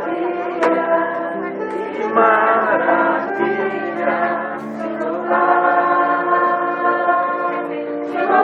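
Ensemble music of slow, held chords that change every second or two.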